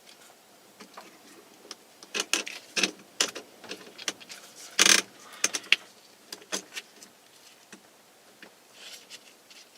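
Scattered small clicks, rattles and rustles of hands handling parts and wiring in a truck's steering column, with one brief, louder rasp about five seconds in.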